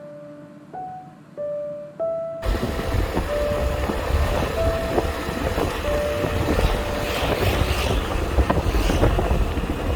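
Soft piano background music with single held notes. About two and a half seconds in, a loud, even, low rumbling noise cuts in under the music and carries on.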